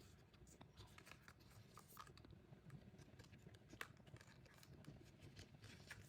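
Faint handling noises: scattered light scratches and clicks of photocards and their packaging being handled.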